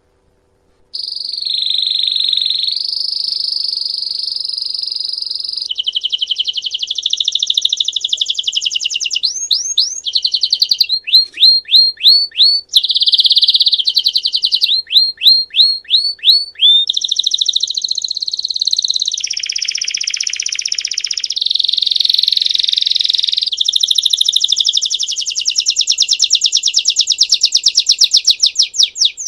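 Belgian canary singing bell-type song, a continuous run of rapid high rolls and trills that begins about a second in, with a passage of quick, separate rising notes in the middle.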